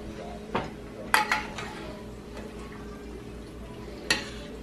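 Metal spoon clinking against a glass baking dish as it scoops pan sauce over a meatloaf: a click about half a second in, a louder double clink just after a second, and another about four seconds in. A steady low hum runs underneath.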